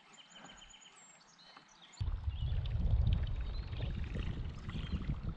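Faint repeated high chirps of a bird. About two seconds in, a loud low rumble with splashing and knocks starts suddenly: water and hull noise from the kayak moving and turning on the lake.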